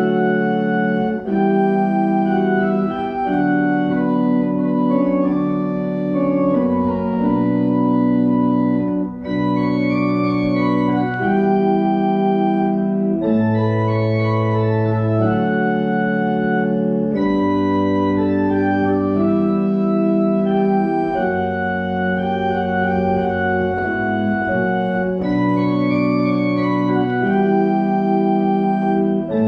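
Church organ playing a slow hymn tune in sustained chords, with a melody over a moving bass line and no singing.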